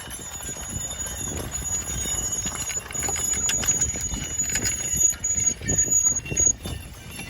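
Team of Belgian draft horses pulling a plough: irregular hoofbeats and knocks of harness and plough gear as they work the field, with a thin steady high whine through most of it.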